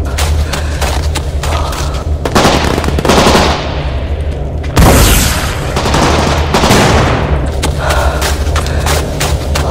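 Volleys of gunfire with rapid automatic bursts and several heavier blasts, the loudest about five seconds in, over a steady low hum.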